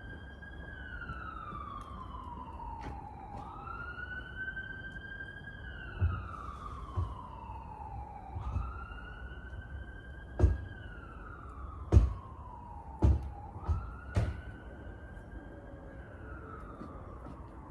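An emergency vehicle siren wailing, its pitch climbing quickly and then sliding slowly down, over and over. About seven sharp knocks are heard in the middle stretch.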